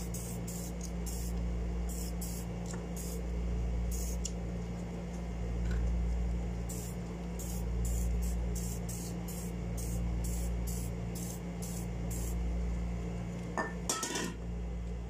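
Short hissing squirts from an aerosol spray can, about one or two a second and irregular for roughly twelve seconds, cleaning the dirty bearing and body of a spinning fishing reel. Near the end there is one brief clatter.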